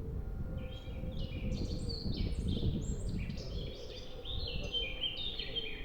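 Birds chirping in a quick string of short, high notes over a steady low rumble of outdoor background noise.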